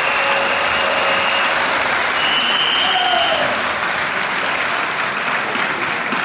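Audience applause, a dense, steady clapping of many hands that eases a little near the end.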